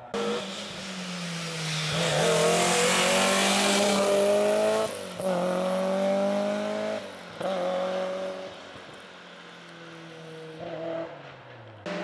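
Historic rally car engine at full throttle, its revs climbing and breaking twice for upshifts, about five and seven seconds in, then fading as the car moves away.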